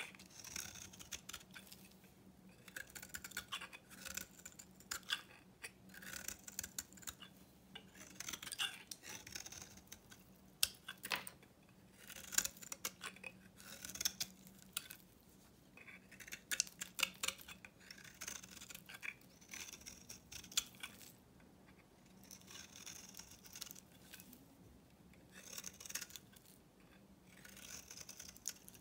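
Snap-off-blade utility knife shaving curls from an old bar of soap: repeated crisp scraping strokes with crackling and a few sharp clicks, about one stroke a second.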